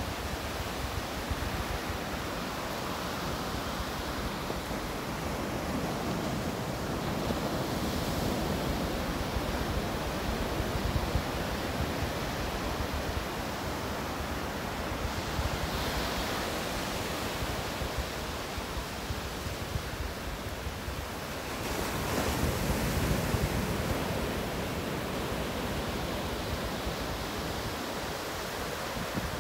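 Ocean surf breaking and washing up the beach, swelling every several seconds, with wind buffeting the microphone.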